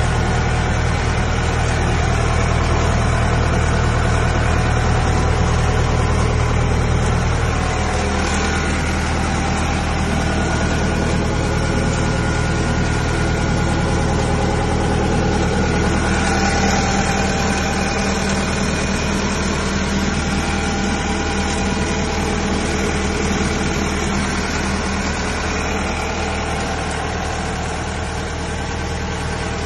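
Diesel engine of a Kubota DC95 combine harvester idling steadily, its low note shifting about eight seconds in.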